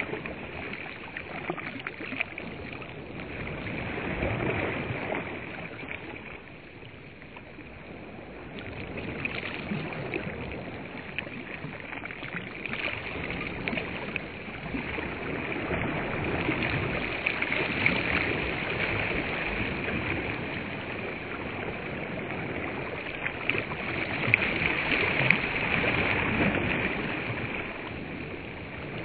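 Small waves washing and lapping onto a sandy reservoir shore, the rush of water swelling and easing in slow surges.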